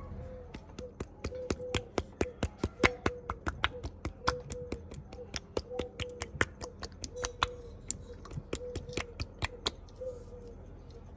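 Plastic squeeze bottle of Búfalo chile sauce squeezed over mango slices: a rapid series of sharp clicks and pops from the nozzle as thick sauce and air spurt out, several a second, stopping about ten seconds in.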